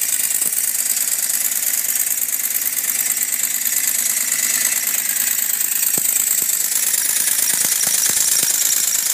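The engine of a working scale-model American LaFrance fire engine running steadily while it drives the model's water pump, with a rattle. A few sharp clicks come in over the last few seconds.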